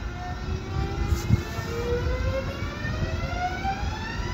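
Type 72 electric multiple unit pulling slowly into a station: a whine of several tones gliding upward over the low rumble of the wheels on the rails, with a low thump a little over a second in.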